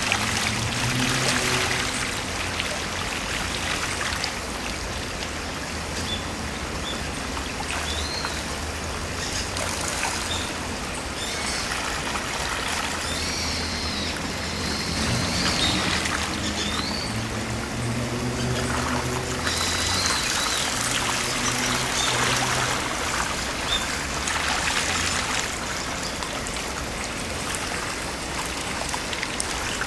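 Shallow stream flowing over a gravel bed: a steady rush and trickle of water, with a few short bird chirps and a low hum underneath that comes and goes.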